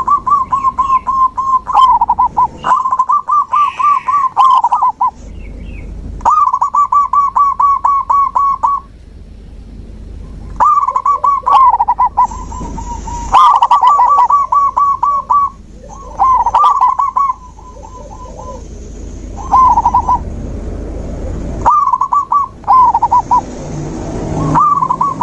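Zebra dove (perkutut) cooing: phrases of rapid, evenly repeated staccato notes, about nine phrases with short pauses between them. A faint steady high hiss runs through the middle.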